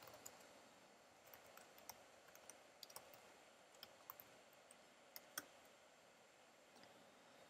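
Faint, scattered keystrokes on a computer keyboard as a terminal command is typed, with one harder key press about five seconds in as the command is entered.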